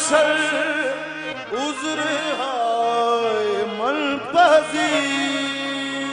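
Qawwali: a man's voice sings long, sliding, ornamented phrases over steady held harmonium notes.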